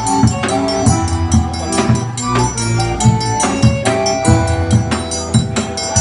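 Live band playing an instrumental passage: drums struck with sticks and a hand-played round drum keep a steady beat under held chords.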